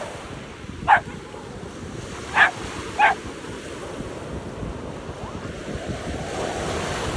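A dog barking three short, sharp times, about a second in and then twice in quick succession, over a steady rushing noise like wind on the microphone.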